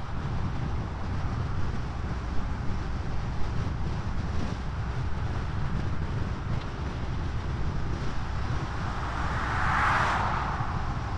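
Steady low rumble of a vehicle driving on a paved road, with wind noise. Near the end an oncoming car passes, its whoosh swelling up and fading away.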